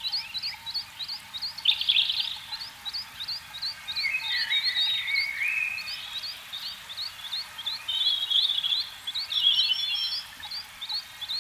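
A chorus of frogs calling: a steady run of short, high, rising chirps, about three or four a second, with other chirping and warbling calls breaking in now and then.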